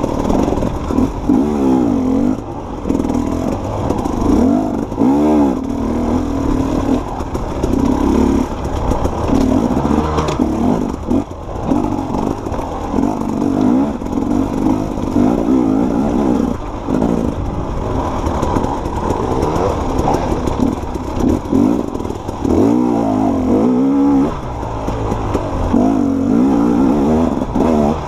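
Dirt bike engine revving up and down as the rider works the throttle on a tight trail, its pitch rising and falling again and again.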